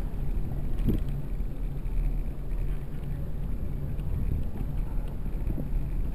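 Wind buffeting the microphone of a camera mounted on a moving bicycle, with a steady low rumble from riding over the street.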